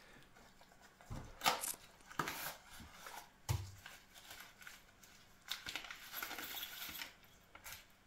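Brown wrapping paper rustling and crinkling in irregular bursts as a ball screw nut is unwrapped by hand, with a couple of short knocks of parts set down on the bench.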